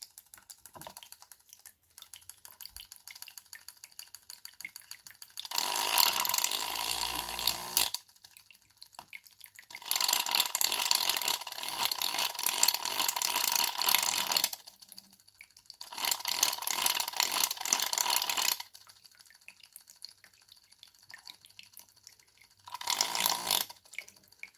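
Small electric breast pump motor running in four separate bursts of a few seconds each, with water gurgling through it. Faint clicks of handling between the bursts.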